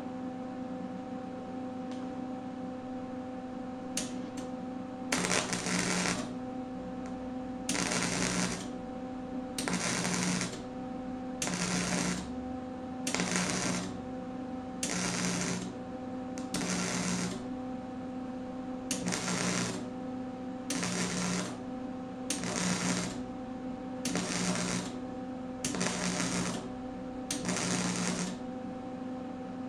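Wire-feed welder stitch-welding a steel seam: the arc sounds in spells of about a second, roughly every two seconds, starting about five seconds in, over a steady hum.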